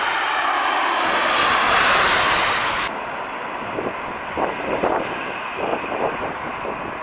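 Boeing 737-8 MAX's CFM LEAP-1B turbofan engines on a landing pass, a loud jet roar with steady whining tones. About three seconds in, the high hiss drops away abruptly, leaving a lower crackling rumble.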